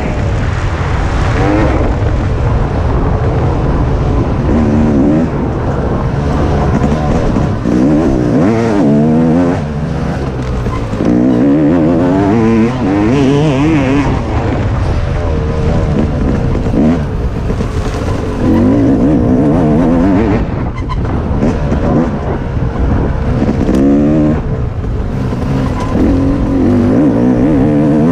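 Dirt bike engine revving up and down again and again as the rider throttles along a trail, its pitch rising and falling every second or two. Heavy wind rumble on the microphone runs underneath.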